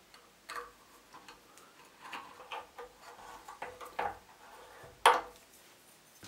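Light metal clicks and knocks as an electric water heater's heating-element flange is seated and its bolts are turned with a spanner, the loudest knock about five seconds in.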